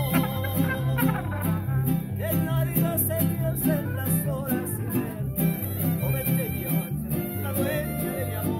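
A mariachi group playing: the guitarrón's deep bass notes alternate in a steady pattern under strummed vihuela, while a man sings the melody.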